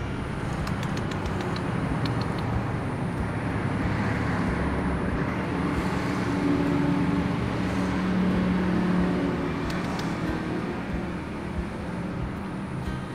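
Steady road traffic noise, with a vehicle engine swelling louder through the middle.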